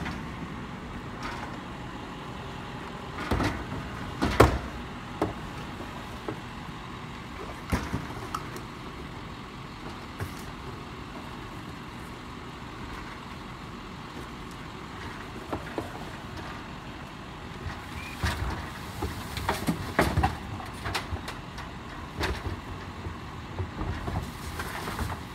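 Garbage truck running steadily, with scattered sharp knocks and clanks, a cluster of them near the end.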